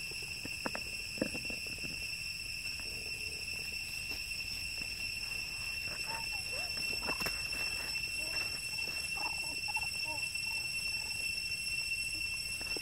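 A steady, high insect drone from the surrounding trees, with scattered rustles and crackles of monkeys moving over dry leaves and a few faint short calls in the second half.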